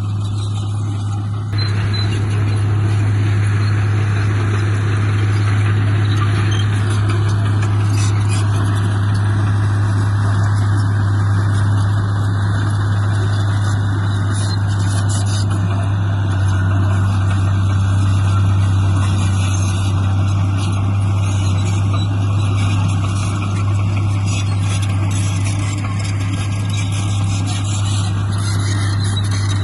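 Heavy diesel engine of earthmoving machinery running steadily under load, with a constant low hum. It grows louder about a second and a half in.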